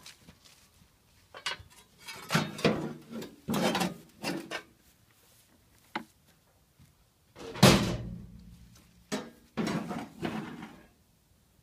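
Hot sauna stones and metal clattering and knocking in bursts as the stones are shifted from a wheelbarrow into the sauna gondola's metal stone basket, with the loudest bang, followed by a short low ring, about seven and a half seconds in.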